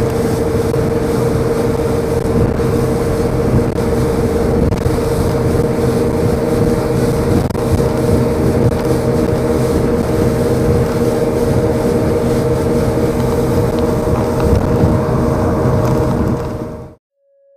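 Passenger speedboat under way at speed: a steady loud engine drone with a constant hum and rushing water and wind noise. It cuts off abruptly near the end.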